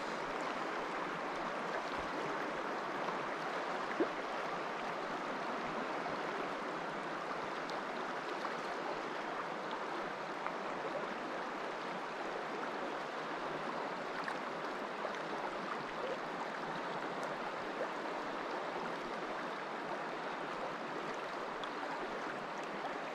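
Steady rush of a river's current flowing past, with a single brief knock about four seconds in.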